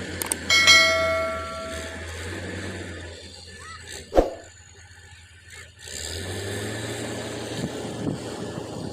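Heavy construction machine's engine running with a steady low drone that fades away about three seconds in and comes back about three seconds later. Near the start a loud held tone of several pitches sounds for about a second and a half, and a single sharp knock comes a little past four seconds.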